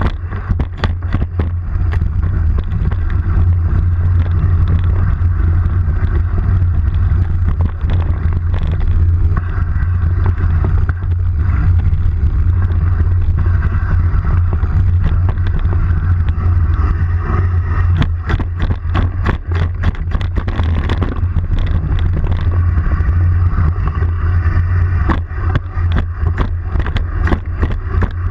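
Bike ridden fast over a rough forest trail: a steady low rumble with frequent knocks and rattles from the bumpy ground, thickest about two-thirds of the way through.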